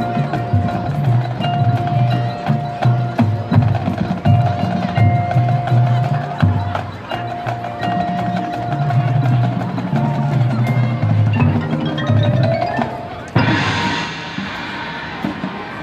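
Marching band playing: a held brass tone over repeated drum strokes and mallet percussion. Near the end the music rises into a sudden loud hit that rings away.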